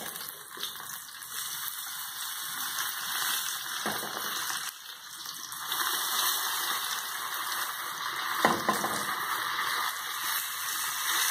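Pieces of boiled cassava frying in oil in a small frying pan: a steady sizzling hiss, with a few light taps of a fork against the pan.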